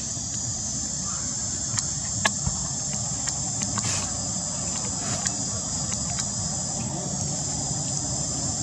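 Steady high-pitched insect chorus over a low rumble, with a few sharp clicks, one a little after two seconds in.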